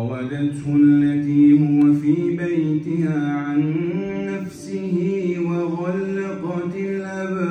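A man's voice reciting the Quran in slow melodic chant, with long held notes that bend and ornament, and a short break for breath a little over four seconds in.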